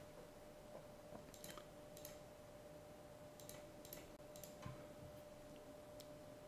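Near silence with faint, scattered computer mouse clicks, several in quick pairs, over a faint steady hum.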